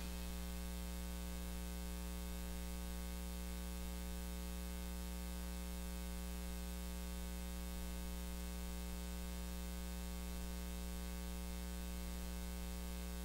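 Steady electrical mains hum with a buzzy stack of higher overtones over an even hiss: the noise floor of the recording or sound system, with no other sound.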